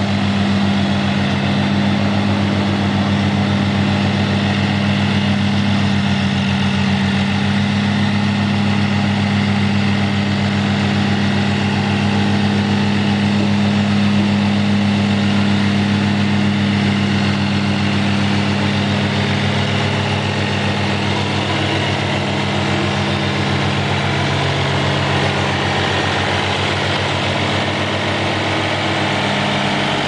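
Greenmech Safe-Trak tracked woodchipper's engine running steadily at an even pitch while it drives the machine on its tracks.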